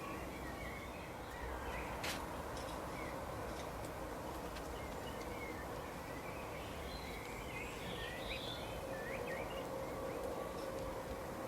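Wild birds chirping in short, scattered calls over a steady outdoor background noise, with one sharp click about two seconds in.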